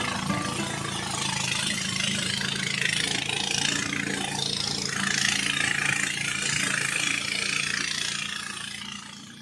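Small river boat's engine running steadily under a strong rushing hiss, while the boat labours upstream; the sound fades out near the end.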